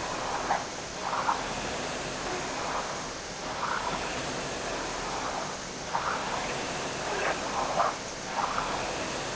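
Concept2 indoor rower's fan flywheel whirring steadily, surging with each drive stroke about every two and a half seconds.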